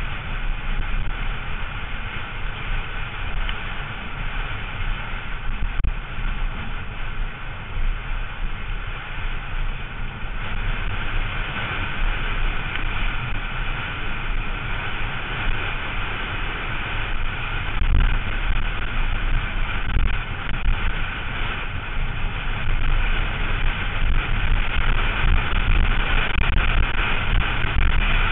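Continuous wind rush buffeting the bike-mounted camera's microphone, mixed with the rumble and rattle of a downhill mountain bike's tyres running fast over loose dirt and gravel. It grows louder around the middle and again near the end.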